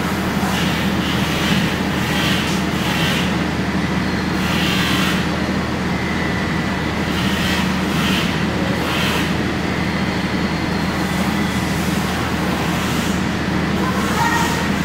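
Steady mechanical drone of running machinery with a constant low hum, with short hissy bursts coming and going every second or so.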